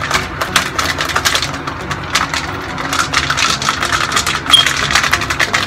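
Capped plastic Diet Coke bottle being shaken hard, with rapid, irregular clicks and rattles of the plastic and its fizzing contents.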